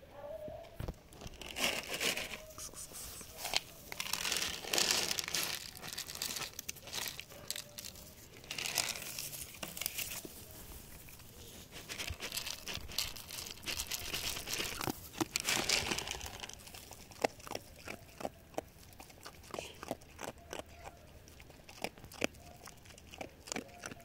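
Plastic crinkling and rustling in bursts as dry pet food is handled in a plastic container, then a run of sharp crunching clicks from about two-thirds of the way in as a dog eats dry kibble off the ground.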